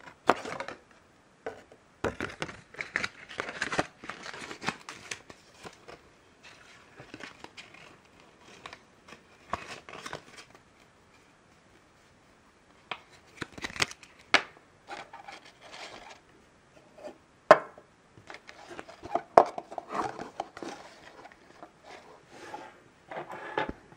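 Paper booklet and packaging handled by hand: irregular rustling and crinkling with light clicks and taps, and a quiet pause of a couple of seconds about halfway through.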